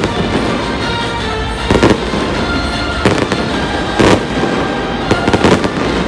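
A dense barrage of aerial fireworks exploding, a continuous din with about five louder bangs standing out, roughly one a second, under a background music track.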